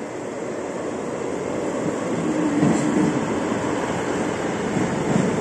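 Class 158 diesel multiple unit running into the platform, its diesel engine drone and the rumble of its wheels on the rails growing louder as it draws alongside.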